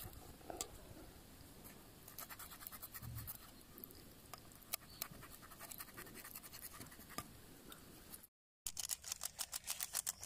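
A small knife scoring raw chicken leg pieces in a metal bowl, making faint scratching and scraping with scattered light clicks. About eight seconds in the sound breaks off briefly and is followed by a run of fast light ticks.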